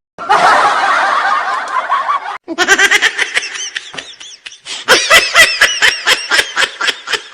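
Laughter. First a dense stretch of many overlapping laughs, then after a brief break about two and a half seconds in, high-pitched laughing in rapid pulses, about four a second.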